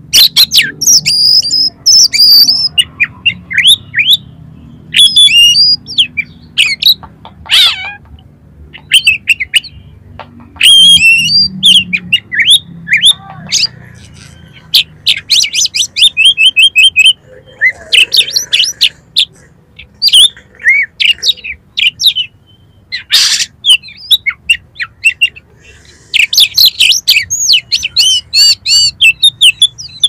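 Oriental magpie-robin singing a varied song rich in mimicked phrases: loud bursts of whistles, quick trills and harsh notes broken by short pauses, with rapid runs of repeated notes about halfway through and again near the end.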